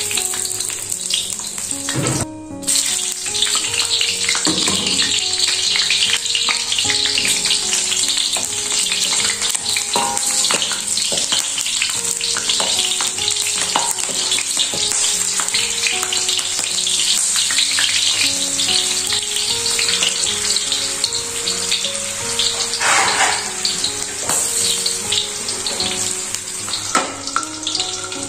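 Sliced shallots and red chillies sizzling in hot oil in a stainless steel wok, stirred now and then with a spatula. The sound briefly drops out about two seconds in.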